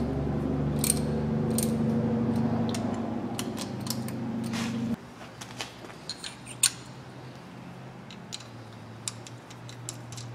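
A power ratchet's motor runs steadily, tightening the bolt that clamps a drill-guide template onto the engine's exhaust flange, and cuts off suddenly about five seconds in. After it come light metallic clicks and taps as the steel template is handled and adjusted.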